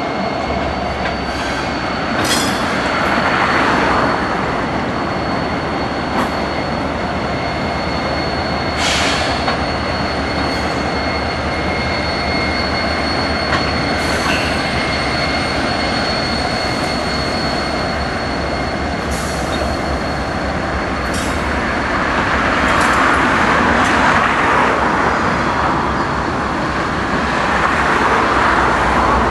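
Norfolk Southern diesel locomotives passing at close range with a steady low engine rumble. A thin, steady high squeal runs over it, with a few short sharp clanks from the wheels and track. The sound swells as the later units go by near the end.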